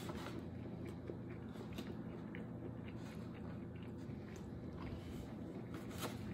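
A person chewing a mouthful of fried chicken tender, with scattered soft mouth clicks and a sharper click about six seconds in.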